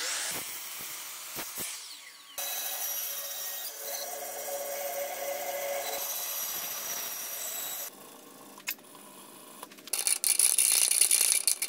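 Power tools cutting small pieces of wood one after another: a Bosch mitre saw, then a band saw running steadily through a block. Near the end a louder, high-pitched whirring and grinding as a drill bores holes into a block of wood.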